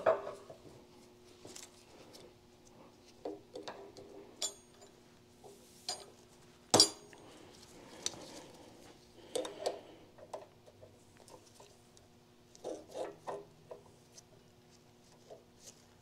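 Scattered light metal clinks and taps of hand tools working on a tractor's shift rail and its key inside the transmission case, with one sharper click about seven seconds in.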